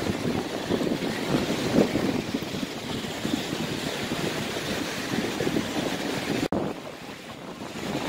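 Wind buffeting the microphone over the steady wash of surf on the shore. The sound drops out for an instant about six and a half seconds in and stays a little quieter afterwards.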